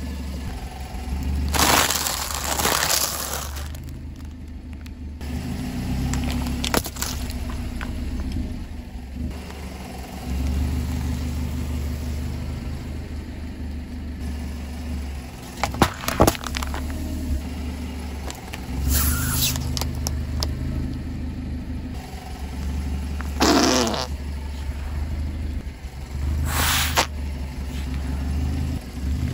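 A car engine running at low idle as the car creeps forward and rolls its tyre over objects on asphalt, with several short hissing bursts and a few sharp cracks as the objects are crushed.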